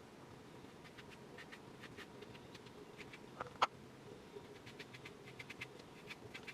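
Faint, scattered light clicks and scratches of small objects being handled, with one sharper click about three and a half seconds in.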